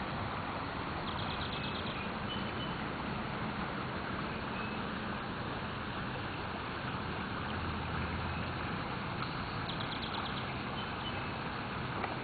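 Steady rush of a swollen creek in flood, the water running hard enough to be eroding its banks. Two brief high trills sound over it, about a second in and near the end.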